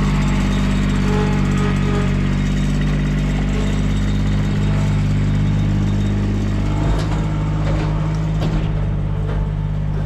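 Toro Z Master Commercial zero-turn mower's engine running steadily as the mower drives onto a trailer. A few sharp knocks between about seven and nine seconds in, as it rolls up the trailer's wooden ramp and deck.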